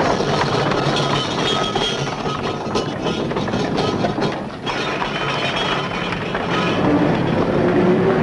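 Horse-drawn carriage rolling along with a steady clatter of wheels and hooves. About seven seconds in, the running engine of an early motor car comes in.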